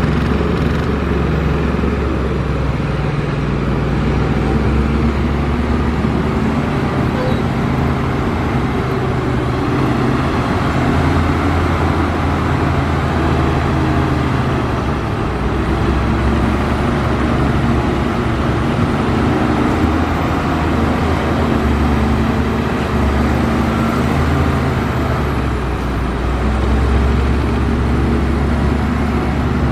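Heavy diesel earthmoving machinery running steadily, the engine note rising and falling several times as the load changes.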